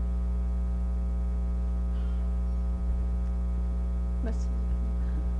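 Steady electrical mains hum, a low buzzing drone made of evenly spaced tones that does not change, with a faint short rustle about four seconds in.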